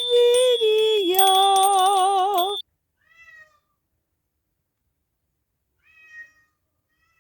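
Domestic cat meowing: long, loud meows that waver in pitch and cut off abruptly about two and a half seconds in, followed by two faint, short falling meows.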